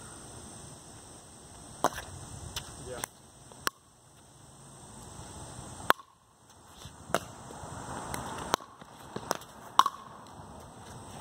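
Pickleball paddles striking a plastic pickleball during a rally on a concrete driveway court: about nine sharp pops of paddle hits and ball bounces, irregularly spaced, the loudest near the end.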